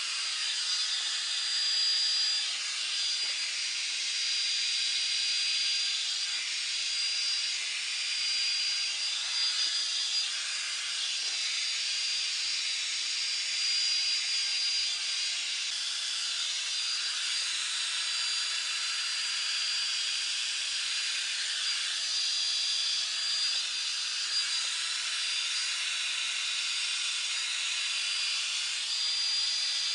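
Revlon One Step volumizer hair dryer brush running steadily: a hiss of blown air with a thin, high motor whine, its loudness wavering slightly.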